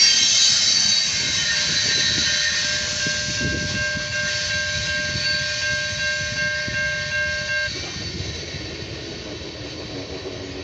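Norfolk Southern manifest freight train's last cars rolling past and receding, the rumble and high hiss of the wheels fading away. A steady high-pitched tone sets in about two and a half seconds in and cuts off suddenly near the eighth second.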